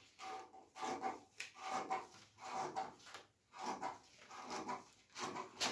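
Scissors cutting through a sheet of pattern paper in a run of snips, about two a second, with the paper rustling between them.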